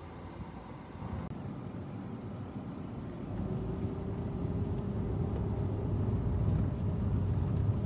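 Low rumble of a vehicle driving, growing louder from about three seconds in, when a steady hum joins it.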